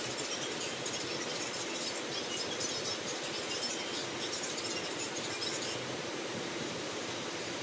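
Graphite pencil scratching on paper in short, irregular shading strokes, over a steady background hiss.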